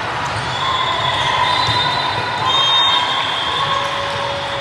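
Echoing gymnasium noise during a youth volleyball match: a steady wash of spectators' chatter with ball and foot thumps, and a few short high squeaks such as sneakers make on a gym floor.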